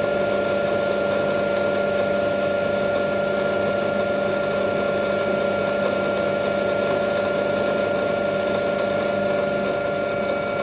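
Metal lathe running steadily with a constant whine while a hand-fed turning cut is taken along the workpiece.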